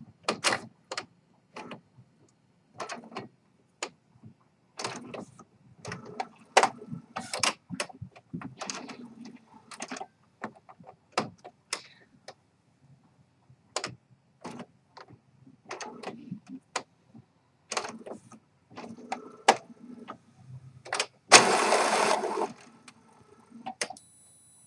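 Epson WorkForce inkjet printer running its initial ink-charging cycle: irregular mechanical clicks and clatter from the print-head carriage and ink pump, with a louder whirring stretch of about a second near the end. A steady high beep starts just before the end.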